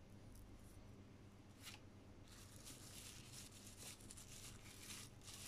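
Near silence: room tone with a few faint rustles of plastic wrap as slices of cookie dough are handled on it.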